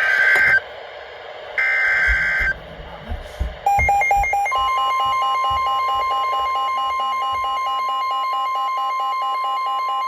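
Weather radio alert signal: the last two buzzy data bursts of the SAME digital header, then, a little over three seconds in, rapid pulsing electronic alert beeps. About a second later a steady single-pitch warning alarm tone joins them and runs on. Together these announce an incoming severe weather warning.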